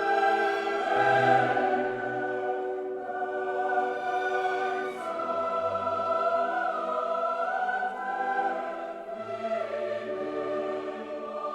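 Classical choral music: a choir sings long sustained notes over an orchestra, changing chords every second or two.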